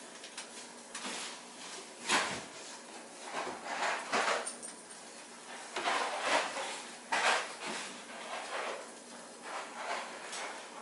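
Kitchen things being handled and rummaged through: a series of irregular rattles, knocks and rustles, with the loudest ones about two, six and seven seconds in.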